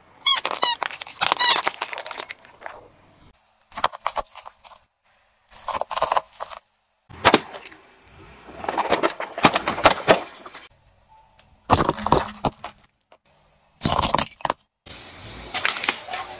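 A car tyre crushing a series of objects, heard as separate short bursts with abrupt cuts between them. In the first burst, spiky rubber squeaky toy balls give several rising squeals as they are squashed. The later bursts are cracks and crunches of crushed plastic.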